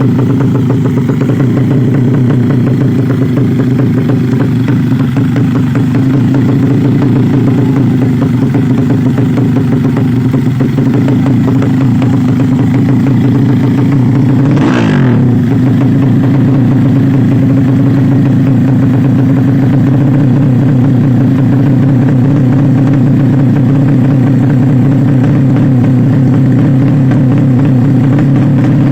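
Yamaha Jupiter Z's single-cylinder four-stroke engine running steadily during a tune-up. About halfway through there is a brief falling sound.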